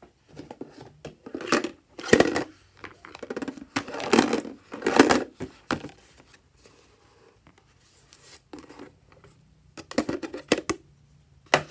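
A small hard-plastic toy house box being handled and opened: irregular plastic clicks, knocks and rustles, with louder clusters in the first half and again near the end.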